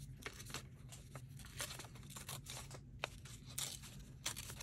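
A piece of thin paper torn slowly by hand to give it a torn edge: a long, faint run of small crackles.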